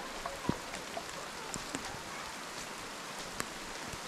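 Steady rain falling, a constant hiss with scattered sharp drop ticks, and a soft thump about half a second in.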